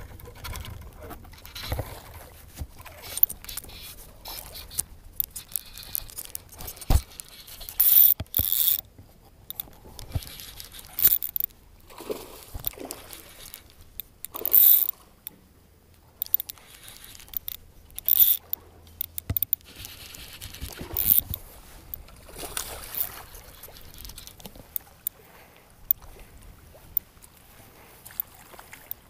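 Close handling noise: irregular scraping, rustling and sharp knocks right at the microphone, with louder bursts every few seconds.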